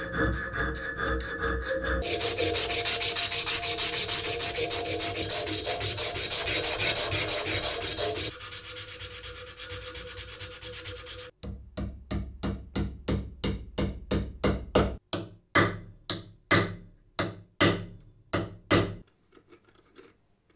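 Hand file rasping across a small metal lever, then abrasive paper rubbed over the metal in quick even back-and-forth strokes. From about halfway through, slower separate rubbing strokes follow, about two a second, stopping shortly before the end.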